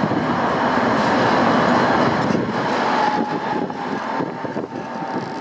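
Tram running along street rails, heard from inside the car: a steady rumble of wheels and motor, with a thin high whine that fades about halfway through as the sound eases a little.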